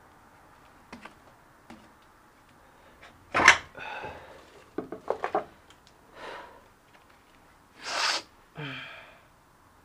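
Hand-work noises on a spin bike under repair: a sharp knock about three and a half seconds in, a quick run of clicks, and several short scraping or rustling bursts between them.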